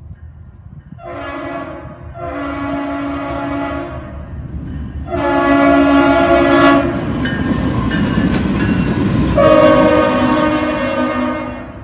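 Norfolk Southern diesel locomotive's multi-chime air horn sounding for a grade crossing: one short blast, then three long ones. Underneath, the locomotive's engine and the rumble of the approaching train grow louder as it nears.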